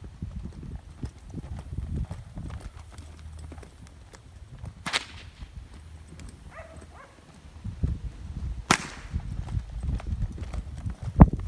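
A horse's hoofbeats thudding on soft ground, with two sharp cracks about five and nine seconds in and a loud snap near the end.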